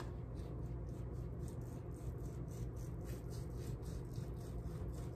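Long knife sawing back and forth through cooked corned beef brisket on a cutting board: faint, rhythmic strokes, several a second, over a low steady hum.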